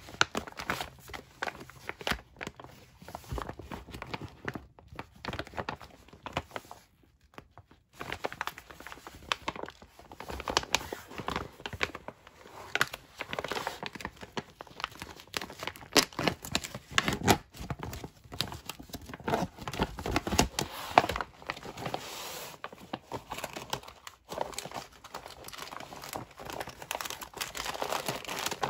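Thick plastic MRE meal bag crinkling and being torn open by hand, a dense run of crackles and rips with a short pause about a quarter of the way in.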